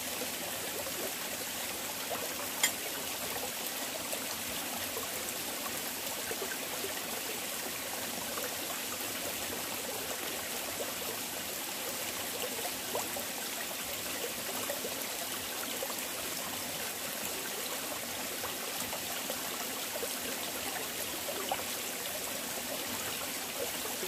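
Shallow mountain stream running steadily over rocks, an even rushing trickle. One sharp brief click about two and a half seconds in.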